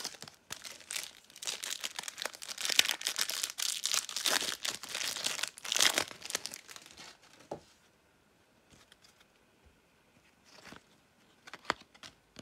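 A Topps Turbo Attax trading-card pack wrapper being torn open and crinkled for about seven seconds, followed by a few light clicks.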